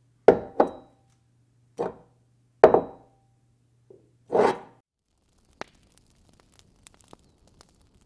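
Sound effects of an animated logo intro: four sharp hits with short ringing tails in the first three seconds over a low steady hum, then a brief swelling whoosh about four seconds in. After that only faint scattered ticks.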